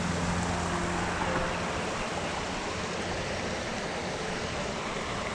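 Creek water running with a steady rushing sound, and a low vehicle hum fading away in the first second or so.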